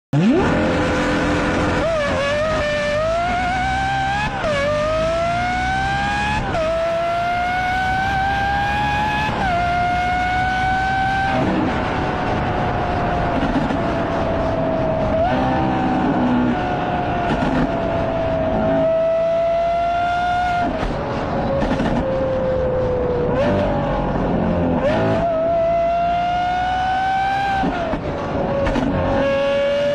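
Race car engine pulling hard through the gears: its note climbs and drops sharply at each gear change, several times in quick succession, then falls off slowly for a stretch before climbing through the gears again.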